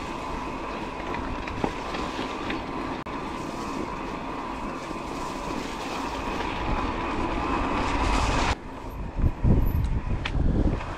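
Electric mountain bike riding on a trail: the motor whines steadily over tyre and rattle noise, then cuts off sharply about eight and a half seconds in, leaving low gusty rumbles of wind on the microphone.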